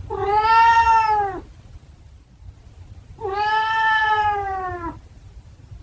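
A domestic cat meowing twice, each a long, drawn-out meow of well over a second, the two about two seconds apart. These are attention-demanding meows.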